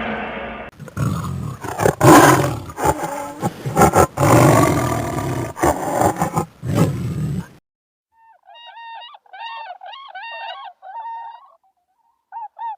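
A large animal roaring loudly and repeatedly, rough and deep, for several seconds; after a short break, a quieter run of short, high, pitched chirping calls.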